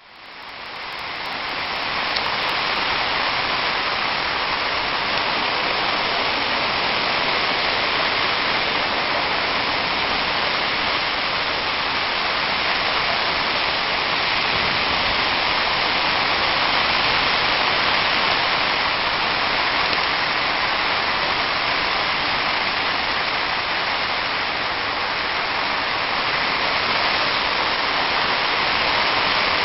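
Heavy rain driven by strong wind, pouring down steadily as a dense, even hiss. It fades in over the first two seconds.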